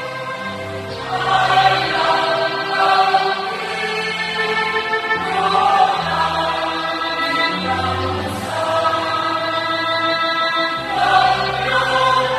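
Mixed church choir singing a Vietnamese Catholic hymn in long held chords, with low bass notes underneath that change every second or so.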